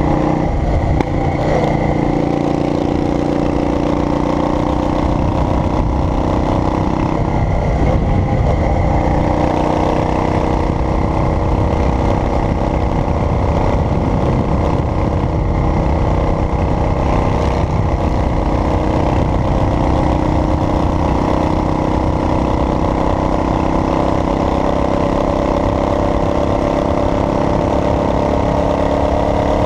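Car engine running steadily under way, with road rumble. The engine pitch rises gradually near the end.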